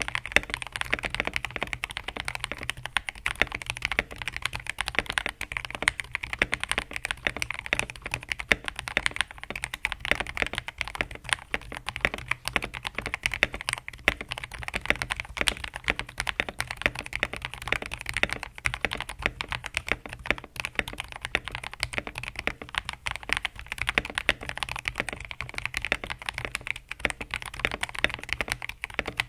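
Steady, fast typing on a TM680 mechanical keyboard with lubed KTT Strawberry linear switches and POM jelly keycaps, modded with tempest tape, PE foam and case foam: a dense, continuous run of keystroke clicks.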